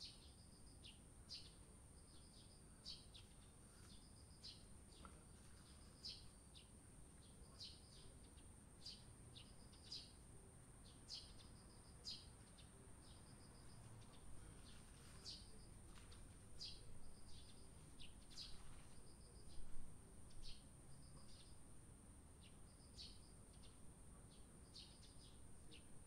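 Eurasian tree sparrows chirping faintly: short, high chirps repeated about once or twice a second.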